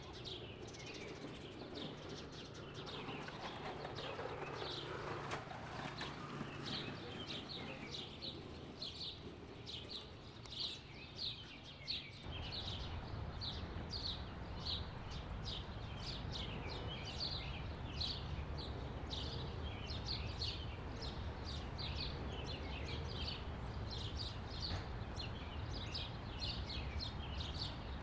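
Ambient sound-effect bed of small birds chirping, short high chirps repeating at about two a second, over a low steady rumble. The rumble changes abruptly about twelve seconds in, where the background layer is cut.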